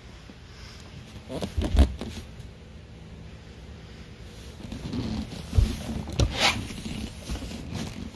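Handling noise as someone moves about the boat: a few dull knocks about a second and a half in, then more knocks and a short scraping, zip-like rasp about six seconds in, over a faint steady hum.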